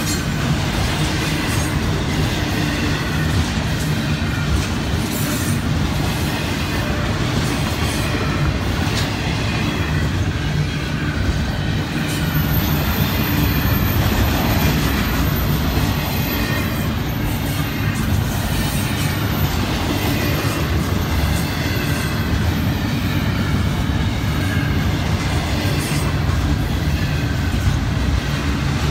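Florida East Coast Railway intermodal freight train of double-stack container cars and trailer flatcars rolling past: a steady rumble of steel wheels on rail, with wheel clacks now and then.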